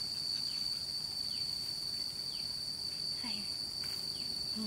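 Steady high-pitched insect drone, with short falling chirps repeating about once a second. A brief low voice-like sound comes in about three seconds in.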